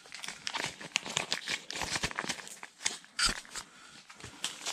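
Thin plastic bags and tackle packaging rustling and crinkling as they are handled. It is a run of small crackles and clicks, with a louder tap about three seconds in.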